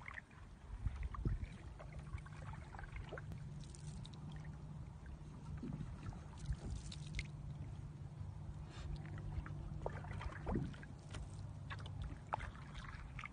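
Canoe being paddled on calm water: a wooden paddle dipping, with water lapping and trickling beside the hull and small scattered splashes, over a low steady rumble.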